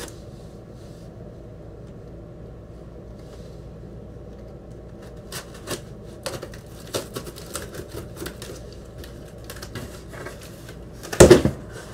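Box cutter scraping and slicing along packing tape on a cardboard box, scattered short clicks and scrapes from about five seconds in. Near the end, one short, louder burst of cardboard handling noise.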